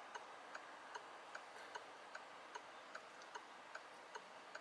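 Faint, steady mechanical ticking, about two and a half sharp ticks a second, over a low hiss.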